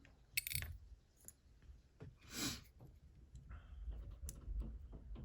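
Light clicks and rattles of small metal lock parts being handled and pushed, with a couple of brief rustling bursts.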